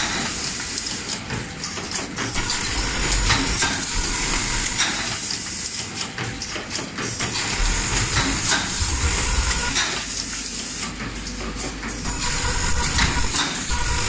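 Automatic double-layer fabric cross-sewing machine running: sewing heads stitching and pneumatic actuators hissing, with irregular mechanical clicks and knocks throughout.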